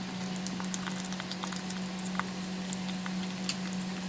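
Sliced onions frying in hot mustard oil in a kadhai: a steady sizzle with scattered pops and crackles, over a steady low hum.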